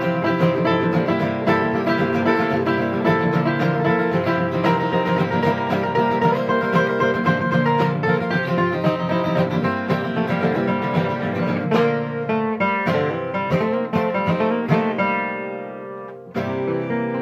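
Live acoustic guitar music in a country/bluegrass style, the instrumental ending of a song: busy playing that thins out after about twelve seconds into scattered notes, then a final strummed chord near the end left to ring.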